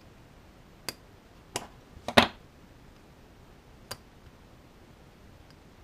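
A few separate sharp clicks of small hand tools against a Ruger Mark III pistol bolt while the spring-loaded extractor plunger is pushed back to free the extractor. The loudest is a quick double click about two seconds in.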